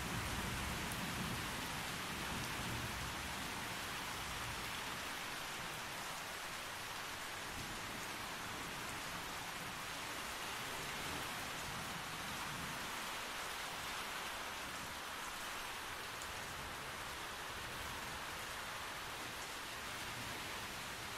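Steady rain falling on a tree canopy, heard from beneath it as an even hiss of drops. A low rumble of thunder fades away in the first couple of seconds.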